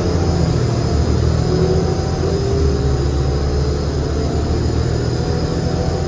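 Cabin sound of a 2007 New Flyer D35LFR transit bus with a Cummins ISL diesel engine and Allison B400R transmission running: a steady heavy low rumble with a faint whine that glides up and down.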